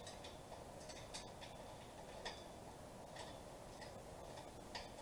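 Faint, irregular metallic clicks and clinks, roughly one a second, from a hand tool tightening the bolts of a steel tower hinge.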